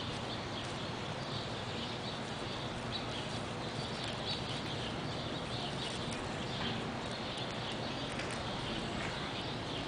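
Steady outdoor background noise with faint, scattered high chirps.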